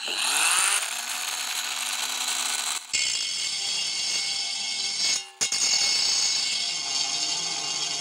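Cordless mini angle grinder with a 50 mm cut-off disc spinning up and running at its lowest speed, about 4000 rpm, with the disc against an aluminium profile. The sound breaks off sharply twice, about three and five seconds in, and picks up again each time. At this speed the grinder is too weak for the cut and stalls.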